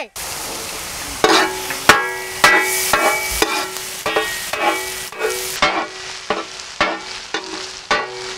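Chopped vegetables and green peas sizzling in a wide, shallow iron pan while a metal spatula scrapes and knocks against the pan in repeated strokes, each stroke ringing briefly.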